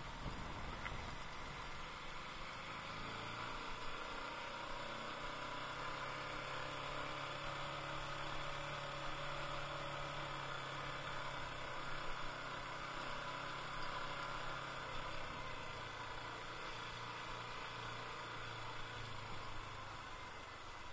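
Motorcycle engine running steadily while the bike is ridden, with a constant rushing noise over it.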